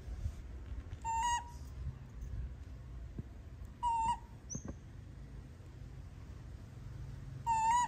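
A kitten mewing three times in short, high-pitched cries a few seconds apart while it is being held and grabbed.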